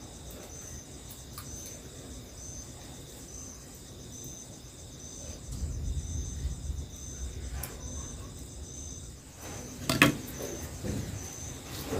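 Crickets chirping steadily, a high pulse about twice a second. Wind gusts rumble low on the microphone midway through, and a single sharp wooden knock comes near the end.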